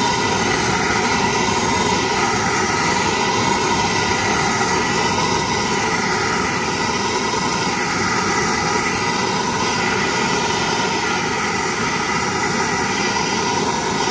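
Handheld gas torch burning with a steady blue flame, a constant rushing hiss, as it heats a seized hydraulic clutch master cylinder to free its stuck piston.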